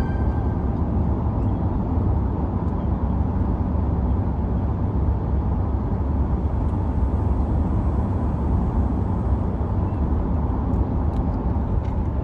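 Car cabin noise while driving at highway speed: a steady, mostly low rumble of tyres and road.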